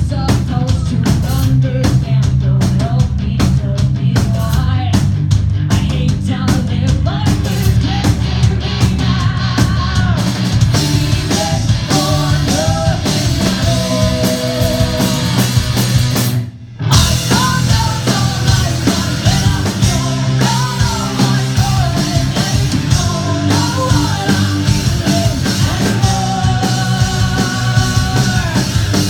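A rock band playing live, with a drum kit driving the song and a singing voice over it. About halfway through, the whole band stops dead for a moment, then crashes back in.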